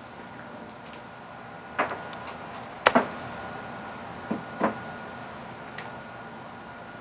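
Hands handling a laptop at a workbench: a handful of short clicks and knocks, the loudest about three seconds in. A faint steady high tone runs underneath.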